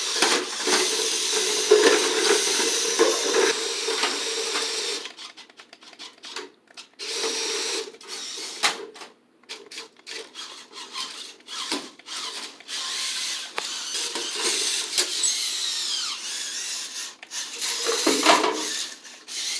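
Small electric motor whirring like a drill: one steady run for about the first five seconds, then a series of shorter runs that start and stop.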